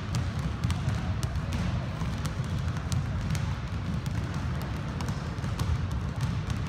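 Several basketballs dribbled at once on a hardwood gym floor, many bounces overlapping without a break.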